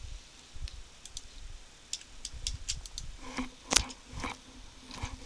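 Scattered computer mouse and keyboard clicks, with one sharper click a little under four seconds in.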